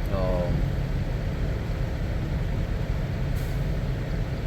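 Steady low rumble of idling diesel engines, with a short hiss of air about three and a half seconds in.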